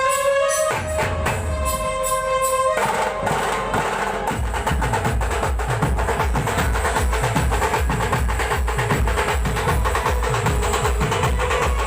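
A procession band playing live. A held melodic line over light percussion breaks, about three seconds in, into dense fast drumming with a steady bass-drum beat about four times a second.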